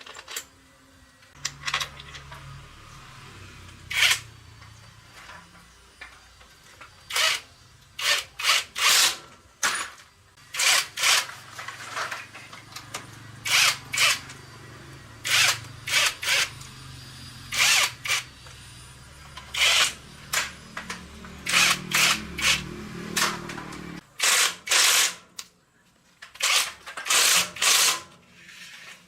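A power tool run in many short bursts, one after another, over a low steady hum.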